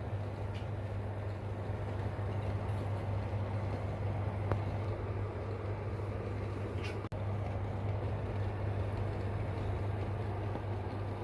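Water boiling in metal teapots on an electric stove: a steady rumbling hiss over a low hum, as limescale and tea stains are boiled off with citric acid.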